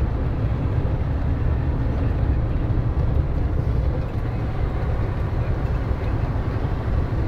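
Mercedes-Benz Actros truck heard from inside the cab on a downhill run: a steady low engine and road rumble.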